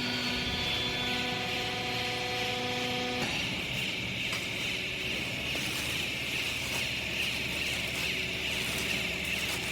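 Hydraulic baler's electric motor and pump running steadily. A pitched hum cuts off about three seconds in, leaving a steady machine noise with a high whine.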